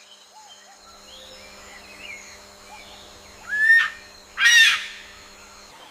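Peacock (Indian peafowl) giving two loud, harsh calls about a second apart, each rising in pitch, a little past halfway through.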